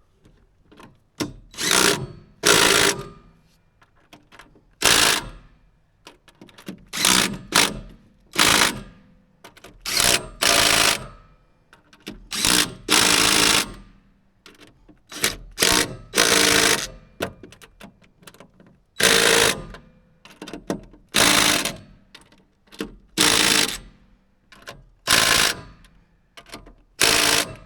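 Cordless power tool run in many short bursts of under a second each, with brief pauses between, driving the bolts of the excavator's hydraulic return-filter housing.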